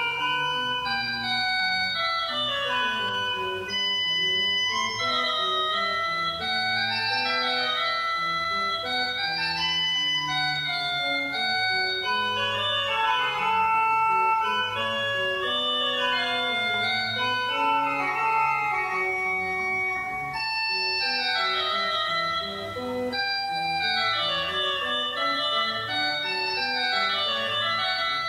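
Background music on an organ-like keyboard, playing flowing runs of held notes that rise and fall over and over at a steady level.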